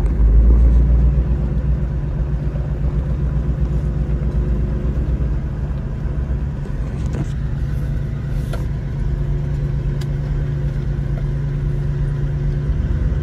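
A 4WD's engine running steadily as it drives slowly along a dirt track, heard from inside the cab as a continuous low rumble, with a few faint ticks past the middle.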